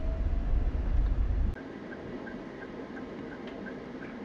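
Car moving with a low rumble that cuts off abruptly about a second and a half in. A quieter car-cabin sound follows, with light, even ticking at about four to five a second, like a car's indicator or warning tick.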